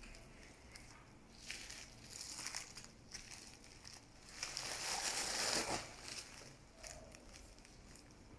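Packaging of a vinyl record rustling and crinkling as it is handled and opened by hand, in uneven bursts with the longest, loudest crinkle about halfway through.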